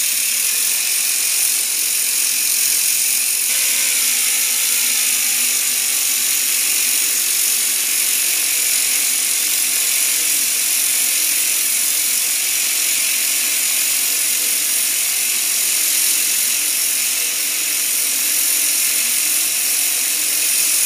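Small homemade steam engine fed from a pressure cooker running steadily, a mechanical whirr and clatter over a constant hiss of steam, as it spins a small 12-volt DC motor used as a generator.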